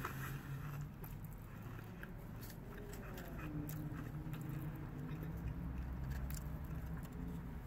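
A person chewing food with the mouth closed: faint wet mouth clicks over a low steady hum.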